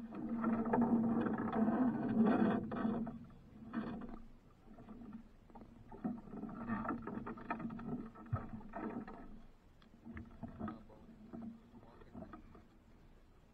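Water sloshing and slapping against the hull of a small wooden outrigger boat in uneven bursts, loudest in the first few seconds over a steady low hum, then weaker and fading toward the end.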